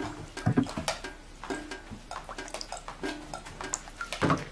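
Water from a leaking ceiling dripping into metal pots and a plastic basin on the floor, a string of short clicks and plinks. Containers knock down on the floor about half a second in and again near the end.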